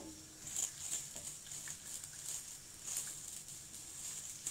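A spoon stirring sliced onions frying in oil in a stainless steel pot, with repeated soft scrapes and rustles a few times a second over a light sizzle.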